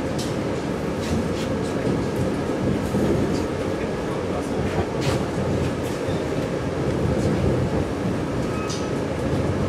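Cabin sound of a moving 485-series electric train: a steady low running rumble, with the wheels clicking irregularly over rail joints and points.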